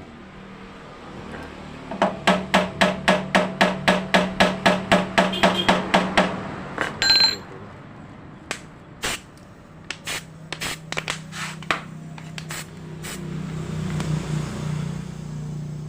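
Metal tool tapping rapidly on a water pump's volute housing while it is tightened, about five sharp knocks a second for some four seconds, then a short metallic ring and a few scattered single knocks.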